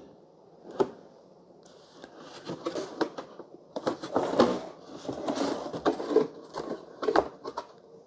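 Plastic housing panels of a Hamilton Beach FlexBrew coffee maker being handled and pried: irregular scraping and rubbing of hard plastic, with sharp clicks as the side panel's clips are worked loose. It is quiet at first, with a single click, and the handling grows busier after about two seconds.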